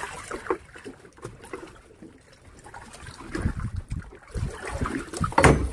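Water splashing and trickling around a small boat, with irregular knocks and clatter and a louder thump or splash near the end.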